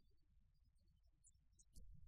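Near silence with a faint low rumble. Near the end comes a short click, then low, irregular rustling and bumping of the camera being handled.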